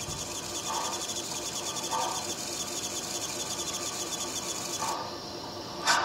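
Sound system of an MTH HO-scale K4 Pacific (4-6-2) steam locomotive model playing its idle sounds through the model's small speaker: a steady steam hiss with a fast fine ticking and a few short puffs. Near the end the first loud, evenly spaced chuffs begin.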